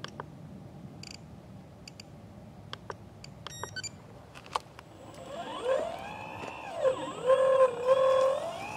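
Scratch-built 1/10 scale RC Volvo EC300D excavator working its arm. About five seconds in, a motor whine with several pitches starts, gliding up and down as it moves and loudest near the end. Before that, only scattered faint clicks and short chirps.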